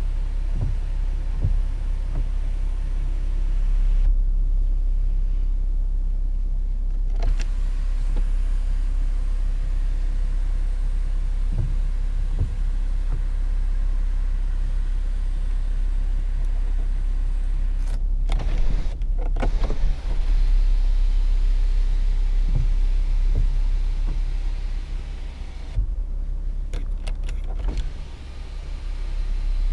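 Steady low rumble inside a Jaguar F-Pace's cabin, with the electric motor of the panoramic glass roof's power blind running and a few soft knocks.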